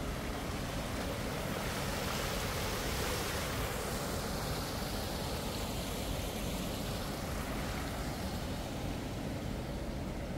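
Steady rushing of water flowing along the stone channel beside a canal lock.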